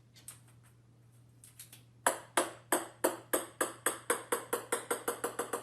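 A run of sharp taps starting about two seconds in, coming faster and faster with each one, after a few faint ticks.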